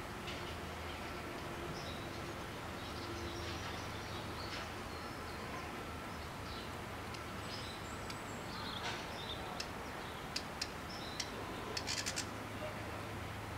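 Small birds chirping now and then over a steady low background hum. A few sharp clicks come near the end.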